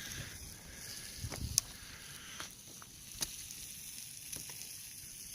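Small campfire of pine wood crackling faintly, with scattered sharp pops at irregular intervals.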